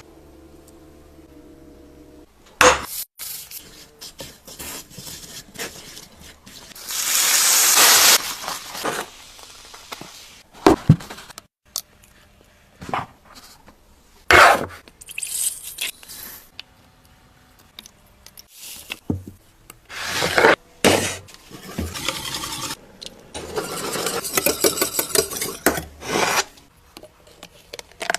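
Kitchen handling sounds: utensils scraping, rubbing and clinking against dishes in irregular bursts, with sharp clicks between them.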